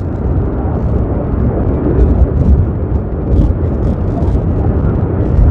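Wind buffeting the microphone of a Yamaha Aerox scooter riding at about 45–50 km/h, a loud steady rush heavy in the low end, with the scooter's engine and road noise underneath.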